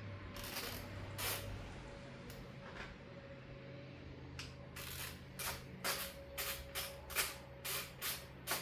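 Torque wrench ratcheting on the 10 mm main-cap side bolts of an LS engine block: a few scattered strokes at first, then a quick run of about two to three strokes a second from about four seconds in. A faint steady hum underneath.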